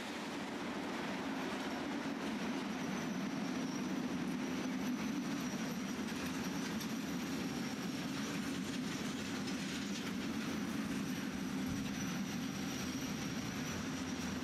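Intermodal freight train's pocket wagons rolling past with a steady rumble and a thin, steady high squeal. The train is under heavy braking.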